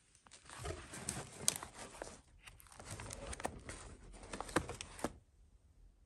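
Paper rustling and crinkling with sharp little clicks as a stack of glossy magazines is shifted and leafed through by hand; it stops about five seconds in.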